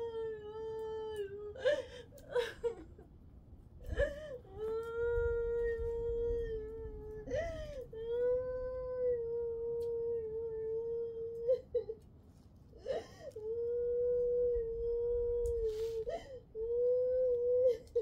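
A person crying in long, drawn-out wails, each held at a steady pitch for about three seconds, with short sobbing gasps for breath between them.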